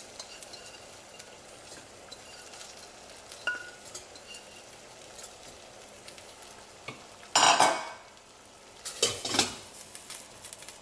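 Broccoli florets tipped from a ceramic dish into a stainless steel steamer basket, with small knocks over a steady faint hiss, then loud clanks of dish and metal: one about two thirds of the way in and another about a second and a half later, as the glass lid goes onto the steamer pot.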